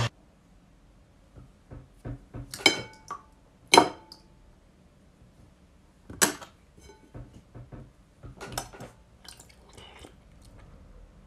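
Metal spoon clinking against a glass bowl: three sharp, ringing clinks among softer taps and scrapes.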